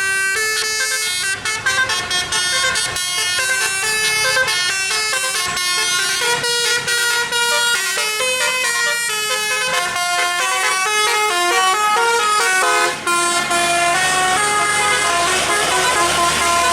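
Bus telolet horn, a multi-tone musical air horn, playing a quick tune of stepped notes that jump up and down. About three-quarters of the way through, a low, steady engine rumble joins in underneath.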